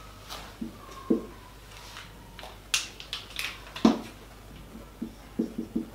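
Scattered light clicks and taps of a marker on a whiteboard, with a quick run of four or five taps near the end as writing starts.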